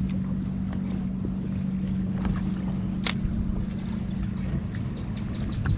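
Steady low electric hum from a bass boat's bow-mounted trolling motor, with one sharp click about halfway through and a few light ticks near the end.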